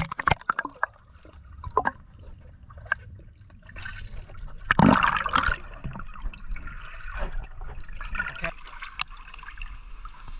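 Swimming pool water sloshing and splashing around a camera held at the surface and dipped under, with a cluster of sharp clicks at the start and one louder splash about five seconds in.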